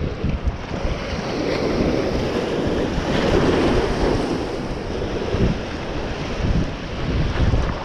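Sea surf washing over shoreline rocks, swelling to a louder wash about three to four seconds in, with wind buffeting the microphone.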